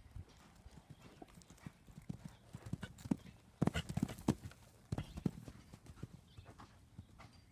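A run of irregular knocks and thuds, busiest and loudest in a cluster about halfway through.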